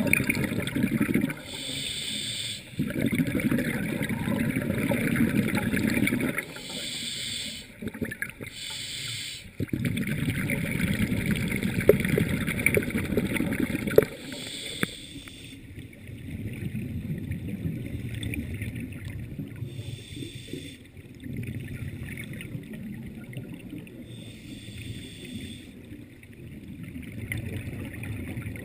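Scuba diver's breathing heard underwater: a few seconds at a time of rumbling exhaled bubbles, alternating with short hisses of the regulator on each inhalation. The breathing grows quieter about halfway through.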